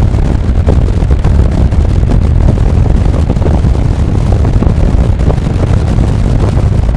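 Wind buffeting the microphone on a moving motorcycle, a loud, steady rumble of noise with no clear engine note standing out. It starts and stops abruptly at the cuts on either side.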